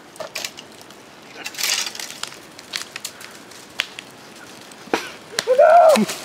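Scattered snaps and crunches of wood and brush as a person scrambles on a small tree, with a longer crunching rustle about two seconds in. Near the end, a person's short drawn-out cry.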